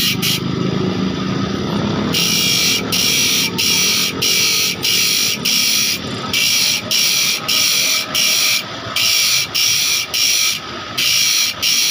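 Small motor-driven grinder with a thin abrasive disc cutting the teeth of a handsaw, one tooth at a time: short rasping grinding strokes, about one and a half a second, over the steady running of the motor. The strokes stop for a little over a second near the start, leaving only the motor.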